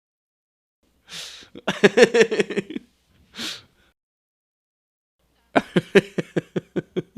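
A man laughing: a sharp intake of breath, a fast burst of laughter, another gasping breath in, then after a pause of about two seconds a second burst of laughter whose pulses slow toward the end.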